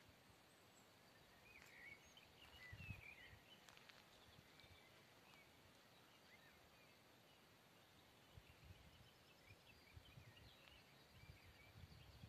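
Near silence: faint birds chirping a few times, with soft low rumbles of wind on the microphone.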